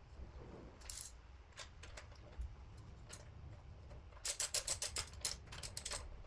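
Ratchet wrench clicking as cylinder head bolts are pre-tightened: a few single metallic clicks, then a fast run of clicks from about four to six seconds in.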